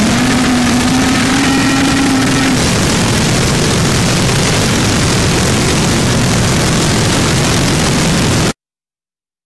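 Harsh noise music: a loud, dense sheet of distorted static covering all pitches, with a faint humming tone beneath it for the first two seconds or so. It cuts off suddenly near the end.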